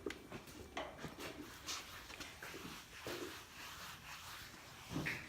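Faint rubbing and scratching from a grooming brush worked over a horse's coat, with a few light knocks scattered through it.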